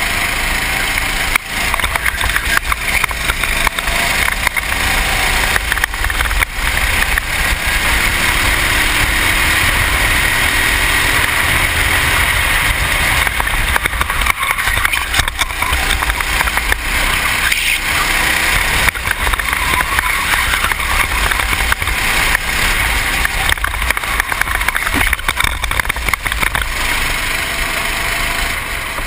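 Racing kart engine running hard at race speed, heard through a helmet-mounted camera, with a dense, steady rush of noise and the engine pitch faintly rising and falling through the corners.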